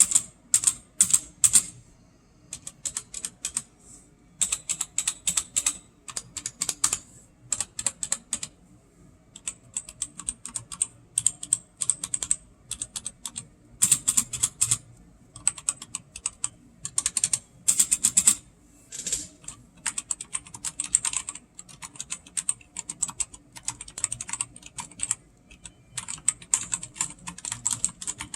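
Typing on a Cougar Puri TKL tenkeyless mechanical keyboard with red linear switches: quick runs of keystrokes in bursts, broken by short pauses.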